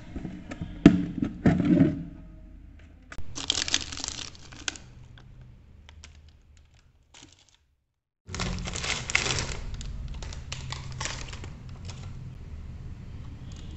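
Plastic snack wrappers crinkling as they are handled, in two bursts, with a few sharp knocks near the start.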